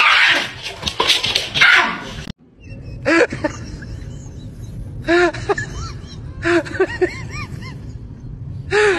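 A loud, rough, rustling noise with many clicks for about two seconds, which cuts off abruptly. Then come short, rising-and-falling high cries from a small animal, repeated every second or two.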